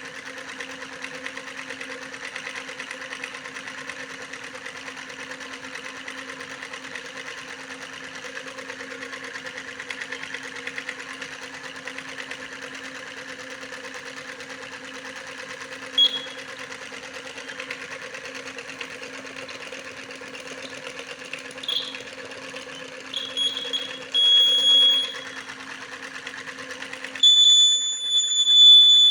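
A small electric motor runs with a steady whirring hum. From about halfway, a high-pitched electronic buzzer chirps in short beeps; near the end the motor stops and the buzzer sounds continuously and loudly.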